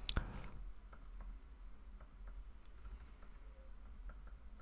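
Faint, scattered computer keyboard key clicks, a few close together at the start and sparse ones after, over a low steady hum.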